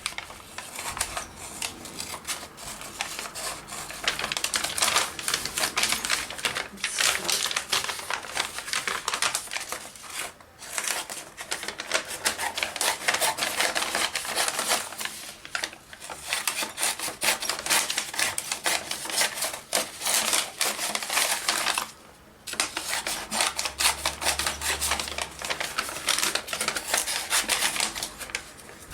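Gel pen scratching on paper in quick, dense strokes, with a few short pauses where the pen is lifted.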